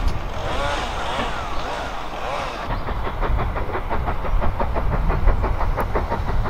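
Steam locomotive approaching under power, its exhaust beats coming in a quick, even rhythm of about five a second from about three seconds in. Before that, mixed rumbling train noise.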